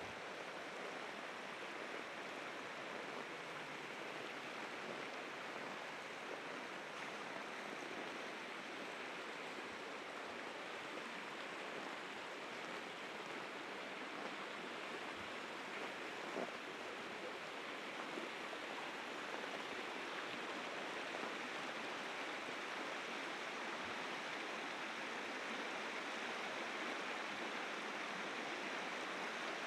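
River rapids rushing steadily, growing slightly louder toward the end.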